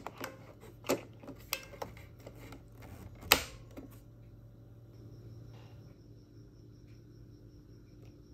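Plastic ink cartridges being handled and pushed into a Brother MFC-440CN inkjet printer's cartridge bay: a run of small clicks and knocks over the first two seconds, then one sharp snap a little over three seconds in as a cartridge latches into place.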